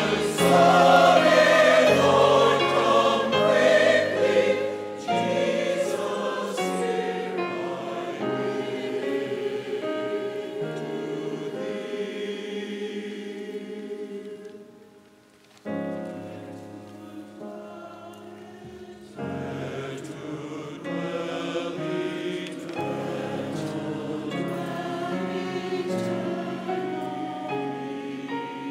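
Large church choir singing with piano accompaniment. The music dies away to a brief pause about halfway through, then starts again.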